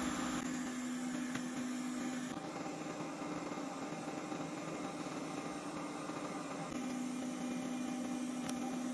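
Hot air rework station blowing: a steady fan hum with an airy hiss, used to lift an SMD chip off a hard-drive circuit board. The hum drops out a little after two seconds and comes back about seven seconds in; a small click near the end.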